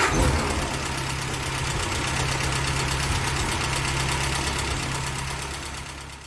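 Railway locomotive running: a loud, steady hiss with a steady low hum beneath it, fading out near the end.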